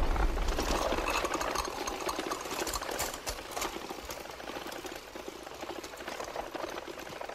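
Rapid mechanical clicking that slowly fades away.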